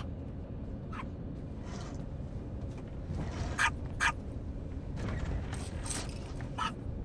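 Steady drone of an airliner cabin in flight, with a chihuahua giving about four short, high yaps.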